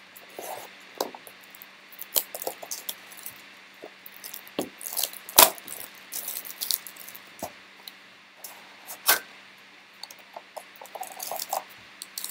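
Cellophane shrink wrap crinkling and crackling as it is torn off a sealed box of trading cards, in irregular sharp crackles and taps, the loudest about five seconds in. Near the end the cardboard box is opened.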